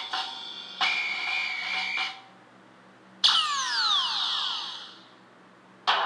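Comic sound effects laid over the video. There are two rasping noisy bursts of about a second each with a steady high tone through them, then a sudden sound with several whistling tones gliding downward together, and a short burst near the end.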